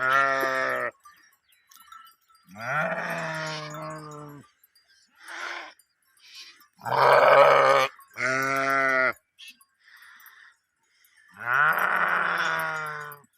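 Sheep bleating: about six separate calls, each lasting a second or so, some with a wavering, quavering pitch, from more than one animal.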